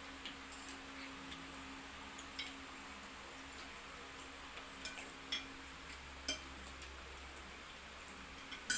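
Scattered light clinks and taps of utensils against plates during a meal, a few short separate ticks over a faint steady hum.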